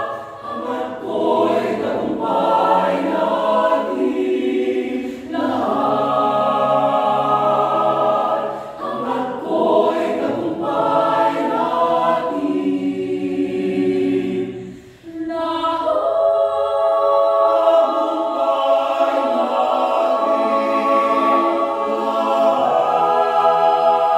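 Mixed-voice chamber choir singing a cappella in sustained, full chords, with a brief near-break about halfway through before all the voices come back in together.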